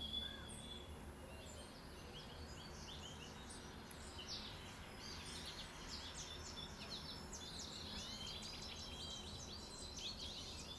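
Background birdsong: many short chirps and whistled notes from several songbirds, busier in the second half, over a low steady rumble.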